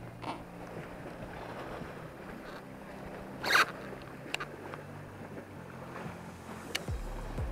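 Water lapping against a plastic fishing kayak's hull, with one loud sharp knock about three and a half seconds in and a few lighter ticks after it.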